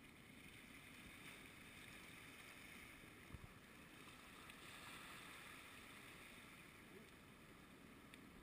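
Near silence: a faint steady outdoor hiss, with one soft knock about three seconds in.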